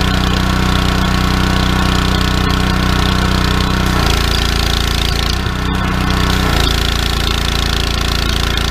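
Simpson 3000 PSI gas pressure washer engine running steadily. About four seconds in the spray gun is triggered and the engine note changes as the pump takes up the load, with the spray hissing. This is the test run after new check valves were fitted, delivering full pressure again.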